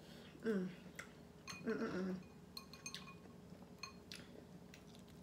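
Two short hummed "mm" sounds from someone eating, then several light clinks of a metal fork against dishes and a glass bowl.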